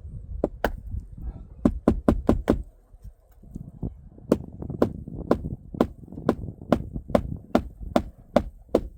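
Hammer driving roofing nails into asphalt shingles: a run of sharp strikes about two a second, with a pause of a second or two near the middle.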